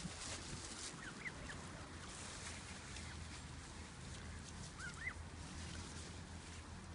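Canada goose goslings peeping: a few short, high, rising calls, a pair about a second in and another pair about five seconds in, over a low steady background noise.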